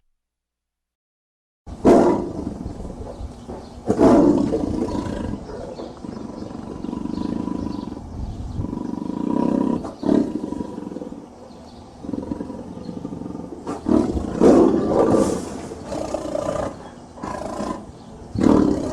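A big cat roaring repeatedly after a short silence: several loud roars with lower rumbling between them.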